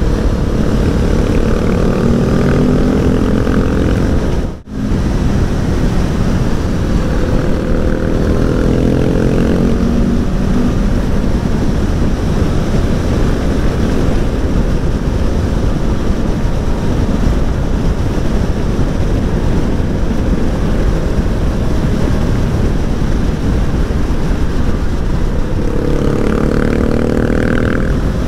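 Aprilia Tuono V4 1100 Factory's V4 engine on the move under heavy wind noise on the microphone. The engine note rises and falls near the start, again around a third of the way in, and near the end. The sound drops out briefly about four and a half seconds in.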